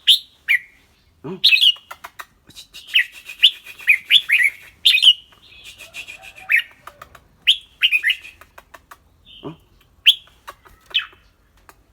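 Red-whiskered bulbul singing: a string of clear, whistled chirps, with a run of rapid chattering notes a couple of seconds in.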